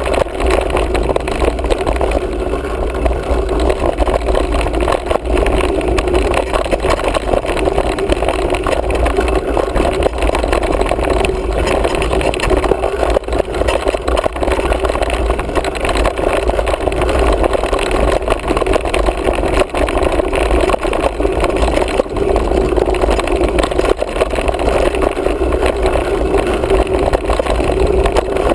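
Mountain bike riding along a dirt trail, heard from a camera carried on the bike or rider: a steady rush of wind on the microphone over the rumble of the tyres on the dirt.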